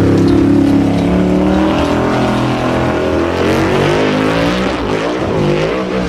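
Off-road hill-climb buggy's engine revving hard under load as it climbs, its pitch holding high and then rising and falling repeatedly, starting suddenly at full volume.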